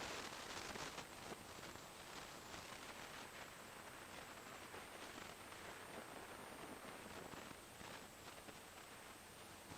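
Faint, muffled wind and road noise of a motorcycle ride picked up by a small camera microphone, an even rushing with irregular buffeting flicks, a little louder in the first second.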